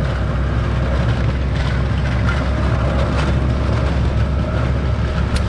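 A small vehicle's motor running steadily on the move, a low rumble mixed with wind buffeting the microphone.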